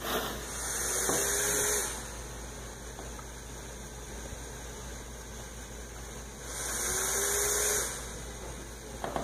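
Home mechanical ventilator pushing breaths through its tubing: two breaths about six seconds apart, each a hiss lasting about a second and a half with a faint rising whine, over a steady low hum.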